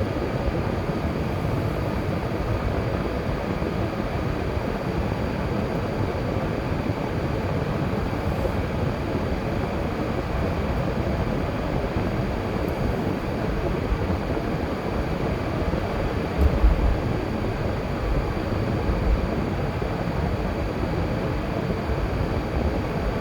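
Car driving along a road: steady road and engine noise, with two brief low thumps about two-thirds of the way through.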